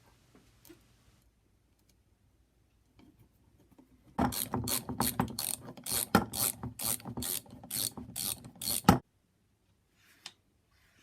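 Ratchet wrench clicking in quick repeated strokes, about three or four a second, tightening the lopper's centre bolt. It starts about four seconds in and stops suddenly about five seconds later.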